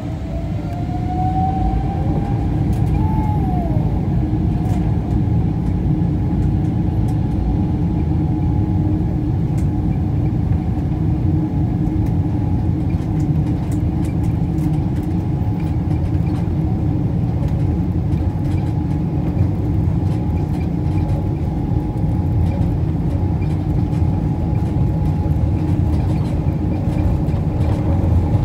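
Boeing 777-300ER's GE90 jet engines spooling up, with rising whining tones in the first few seconds, then a steady loud run at takeoff power with a deep rumble. Heard from inside the front of the cabin, with light rattles.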